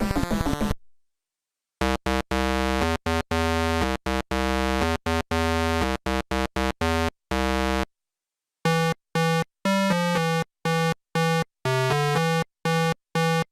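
Synthesizer music: a simple electronic melody of short and held notes that change pitch in steps. It breaks off into silence twice, for about a second near the start and again around eight seconds in.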